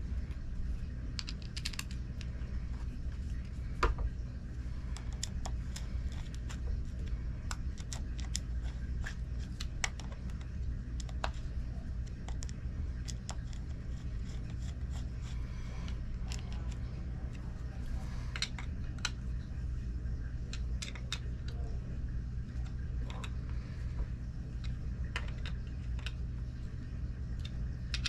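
Light, irregular clicks and ticks of small screws and a screwdriver against a carburetor body as a side cover's screws are started and driven in, with one sharper click about four seconds in. A steady low hum runs underneath.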